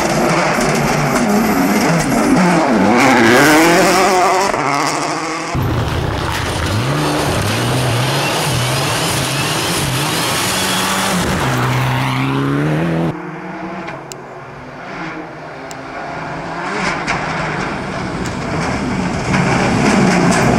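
Rally cars driven flat out on a gravel stage, one after another: engines revving up and down through gear changes, with gravel spraying from the tyres. The sound changes abruptly twice, about five seconds in and past the middle, as one car gives way to the next.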